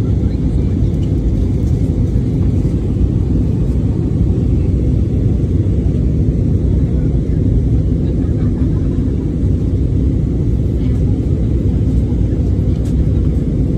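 Steady low rumble of a jet airliner's cabin in flight: engine and airflow noise heard from inside the cabin.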